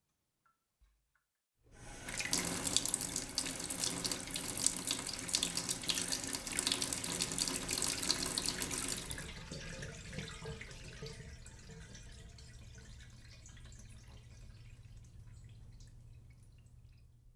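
Running water that starts suddenly about a second and a half in and flows strongly for about seven seconds, then eases to a softer, steadier flow until it stops.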